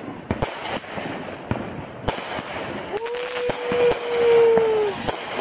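Fireworks going off, many sharp cracks and pops in quick succession, with one steady tone held for about two seconds in the middle, falling slightly at the end.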